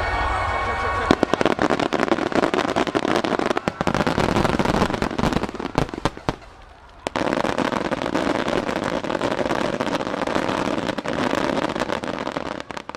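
Fireworks finale: volley after volley of aerial shells bursting, with dense popping and crackling. Music stops about a second in. About six seconds in there is a brief lull, then the bursts and crackle start again and stop abruptly just before the end.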